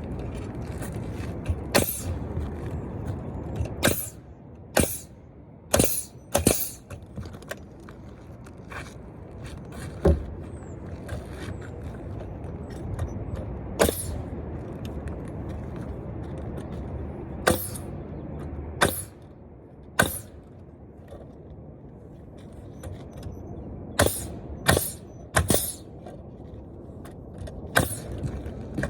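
Sharp, irregularly spaced knocks and taps of masonry work on a brick fireplace chimney, about twenty in all, over a steady low rumble.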